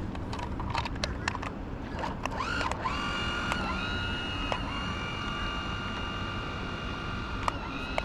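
Electric motor of a Nitro Z21 RC fishing boat, a high whine that climbs in pitch about two seconds in as the boat takes off, holds steady while it runs across the pond, then drops and stops near the end. A few light clicks come before it starts.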